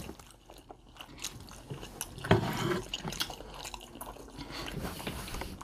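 Close-miked eating sounds: small wet clicks and smacks of lips and chewing as red snapper is picked apart by hand and eaten, with a brief hummed vocal sound about two seconds in.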